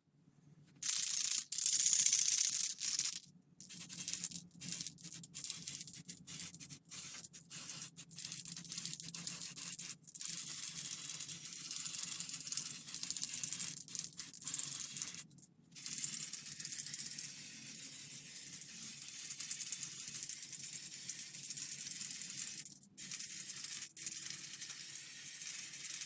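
Tamiya aerosol spray can spraying primer in hissing bursts: one strong burst about a second in, a run of short quick bursts, then longer steady passes broken by brief pauses.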